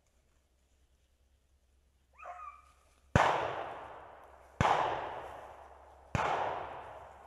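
Three shots from a pump-action shotgun, about one and a half seconds apart, each ringing out with a long echoing fade. They follow a brief bay from a beagle about two seconds in.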